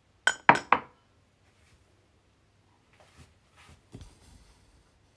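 Three quick, sharp knocks in the first second, then a few fainter taps and clicks: cookware and kitchen things being handled while the wok and cooker are set up for frying.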